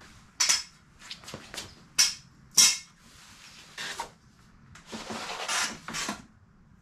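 Steel strut channels set down on a concrete floor: three sharp metal clanks in the first three seconds. Then a longer stretch of scraping and rustling, about a second long, as a solar panel is slid out of its carrying case.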